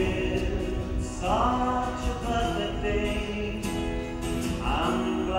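A man singing long held notes to an acoustic guitar, sliding up into a new phrase about a second in and again near the end.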